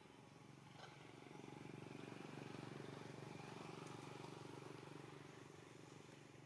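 Faint, low engine hum that swells to a peak about two seconds in and then slowly fades.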